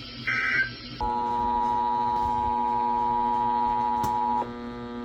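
Emergency Alert System broadcast audio. A brief warbling data burst, the end of the previous alert's end-of-message code, is followed about a second in by the steady two-tone EAS attention signal. The attention signal sounds for about three and a half seconds and cuts off abruptly, leaving a steady electrical hum.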